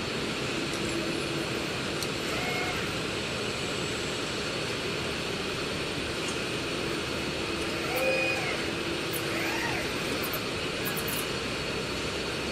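Automatic piston screen-printing line and robot arm running: steady machine noise and hum, with short servo-motor whines that rise, hold and fall in pitch a few times as the arm and printing heads move, the loudest about eight seconds in.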